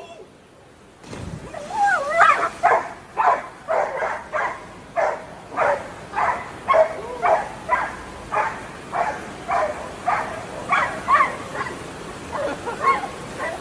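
A dog barking over and over, about two short barks a second, starting about a second in.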